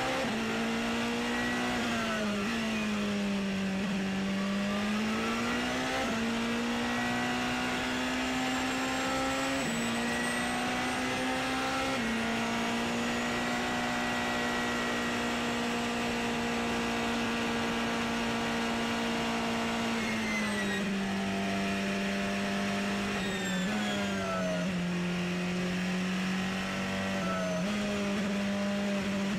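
Porsche 919 Hybrid LMP1 car's turbocharged 2.0-litre V4 engine at racing speed, heard onboard. The engine note dips under braking for a corner about three seconds in, climbs back through several quick upshifts, holds steady flat out along a straight, then drops about twenty seconds in and steps and rises through the gears again, with faint rising whines above it.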